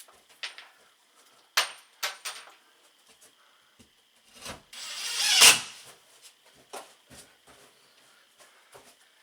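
Tools and hardware being handled during an electrical installation: a few sharp clicks and knocks, then a scraping rub that swells to the loudest moment a little past the middle, and two more knocks near the end.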